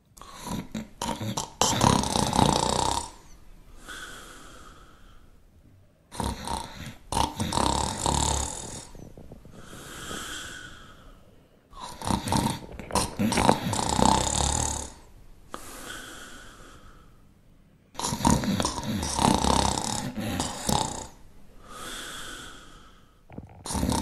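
Shar Pei dog snoring in its sleep: about four slow breaths, roughly six seconds apart, each a loud snore followed by a softer, higher-pitched breath.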